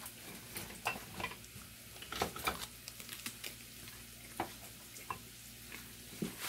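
Food frying faintly in a skillet on the stove, with scattered light clicks and knocks as kitchen utensils are handled.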